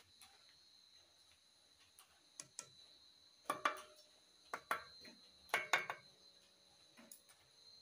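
Light metallic clinks and taps as small steel parts and a screwdriver are handled against a bare air-cooled VW engine case half during assembly. They come in a few short clusters, loudest about three and a half and five and a half seconds in.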